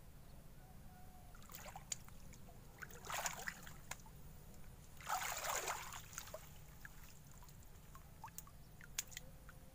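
Shallow water sloshing and splashing in three short bursts as a person wades and moves among weeds, with a few sharp clicks between them.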